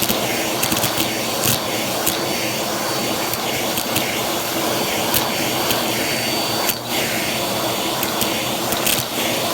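Vacuum cleaner running steadily while picking up a crunchy mess, with scattered sharp clicks and crackles of debris being sucked up.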